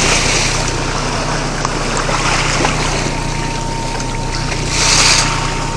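Fishing boat's engine running steadily under the rush of wind and choppy sea against the hull, with louder whooshes of wash at the start and about five seconds in.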